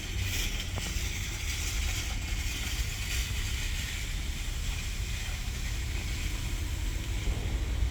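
Coca-Cola poured onto a corroded car battery terminal, fizzing and hissing as it reacts with the corrosion, over a steady low rumble.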